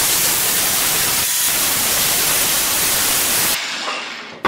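Bosch variable-speed angle grinder with a flap disc sharpening the cutting edge of a steel mower blade: a loud, steady hiss. About three and a half seconds in the grinding stops and the motor winds down, ending in a knock as the grinder is set down.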